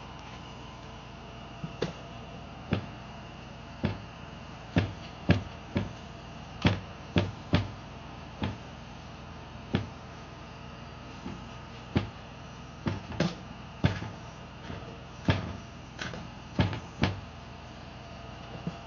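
Things being handled: about twenty light knocks and clicks at irregular intervals, over a steady low hum.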